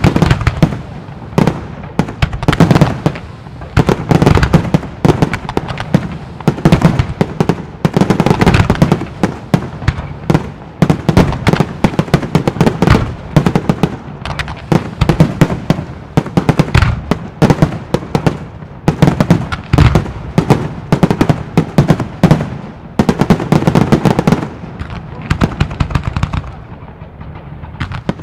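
Professional fireworks display: a dense, unbroken barrage of aerial shell bursts and crackling, many bangs a second, swelling into louder clusters every few seconds.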